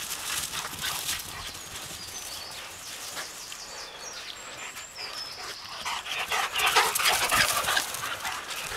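Two dogs, a Rhodesian Ridgeback and a smaller dog, playing and chasing each other on grass, their dog noises and movement loudest from about six seconds in as they run close by.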